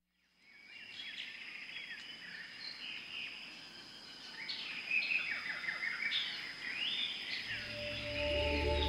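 Many birds calling over a steady high tone, a dense chorus of chirps and whistles. Near the end, low sustained music begins to fade in under them.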